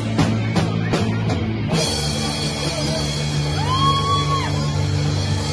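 Live rock band playing loud: electric guitars, bass and drum kit, with drum hits about three times a second until the drums drop out under two seconds in. The guitars and bass then ring on a sustained chord, with a single held note that swells and falls away near the middle.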